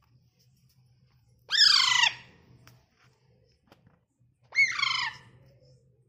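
Alexandrine parakeet giving two loud, harsh squawks, each about half a second long and about three seconds apart.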